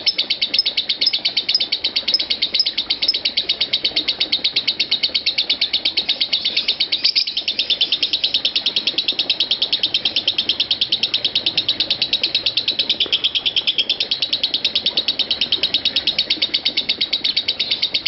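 A Fischer's lovebird in ngekek: a long, unbroken chatter of fast, evenly repeated short high notes, with no pause to breathe. This is the continuous ngekek that Indonesian lovebird keepers prize.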